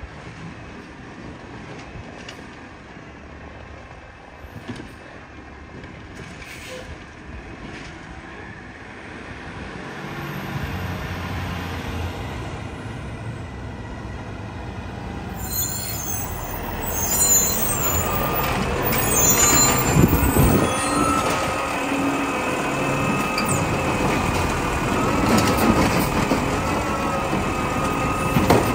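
Side-loader garbage truck approaching and growing louder, stopping with a hiss of its air brakes. Its engine and a steady hydraulic whine then run as the automated arm grabs and lifts a trash cart.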